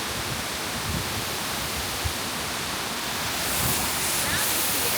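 Waterfall rushing: a steady, full hiss of falling water, a little louder about three and a half seconds in.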